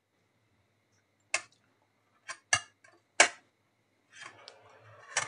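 Steel kitchenware clinking: a stainless steel plate lid and a metal utensil knocking against a steel pot in four sharp clinks, then a softer rattle near the end.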